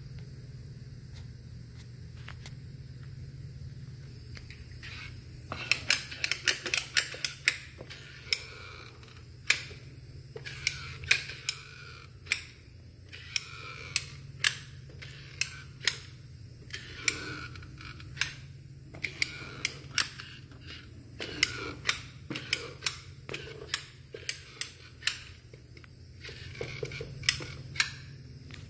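Manual caulk gun laying beads of adhesive, its trigger and plunger rod clicking sharply with each squeeze. The clicks are irregular, some in quick runs, and start about five seconds in over a low steady hum.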